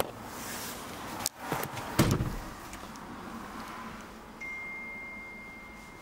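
Clicks and a heavy thump from handling inside an Audi A5's cabin. A steady high electronic warning tone from the car starts a little past four seconds in.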